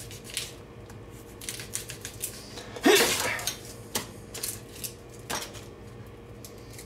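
Kitchen knife slicing a shallot on a plastic cutting board: irregular clicks and taps as the blade meets the board, the loudest knock about three seconds in.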